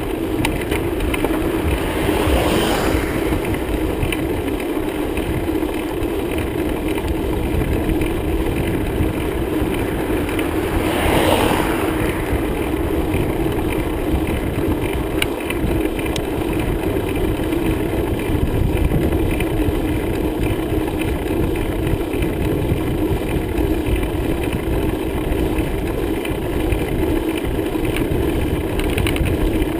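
Steady wind and rolling noise of a moving bicycle ride, with a low rumble and a constant hum, swelling briefly twice, about two and eleven seconds in.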